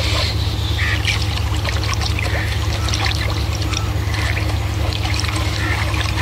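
Steady low drone of a boat's engine, with water trickling and sloshing along the hull in soft, repeated swells.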